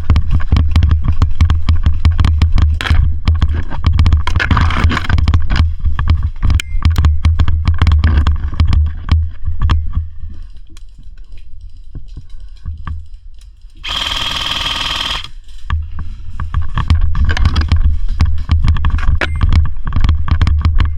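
Footsteps crunching through woodland brush, with heavy low rumble and rustle from the camera being carried while moving. About two-thirds of the way through comes a burst of full-auto fire from an electric airsoft gun, lasting about a second and a half.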